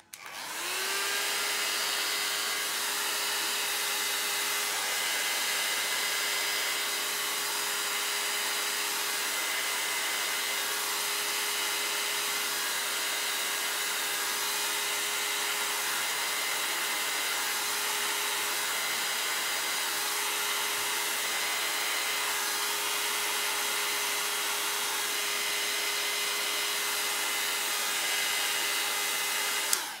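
Handheld electric hot-air blower switched on, its motor spinning up in about a second to a steady whine over a rushing hiss of air, then switched off at the end. It is blowing hot air over wet alcohol ink on paper to push and dry the ink.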